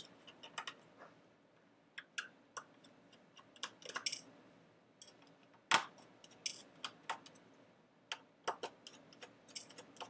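Scattered small clicks and metallic ticks from a screwdriver turning the tiny screws out of an iBook G4's metal RAM shield, with one sharper click a little past halfway.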